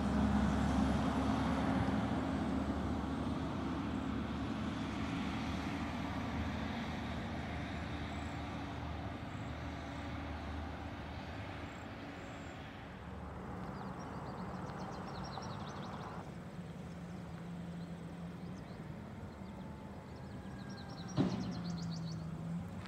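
Garbage truck's diesel engine running steadily along the road, with a single sharp bang near the end.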